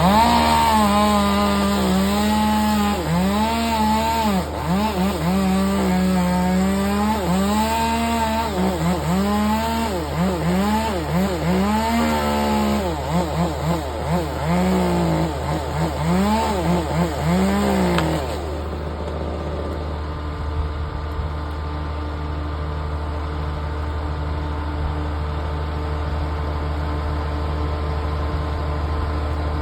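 Chainsaw revving up and down repeatedly as it cuts, the throttle rising and falling about once a second, then cutting off about eighteen seconds in. A steady low engine hum runs underneath throughout.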